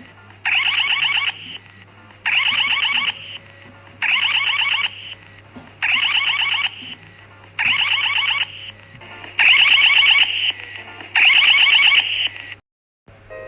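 Electronic emergency alert alarm sounding in repeated bursts of about a second, spaced under a second apart, each burst a fast warbling tone. The last two bursts are louder, and the alarm cuts off abruptly near the end.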